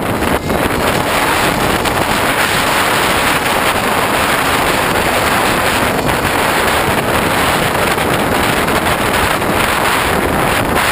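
Steady, loud wind rush over a GoPro mounted on a Hobbyking Bixler RC foam plane in flight, air buffeting the onboard camera's microphone.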